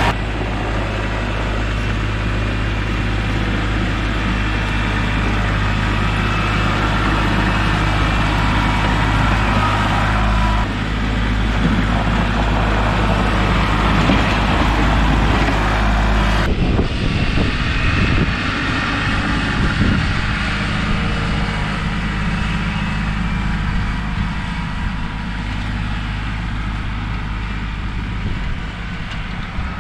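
Kubota L3301 tractor's diesel engine running steadily. About halfway through, the sound shifts to a less even engine note.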